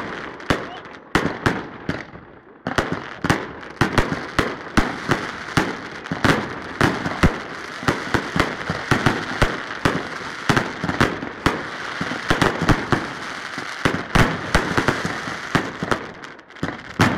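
Fireworks display going off in rapid succession: dense volleys of sharp bangs over continuous crackling, with a short lull about two seconds in before the barrage resumes.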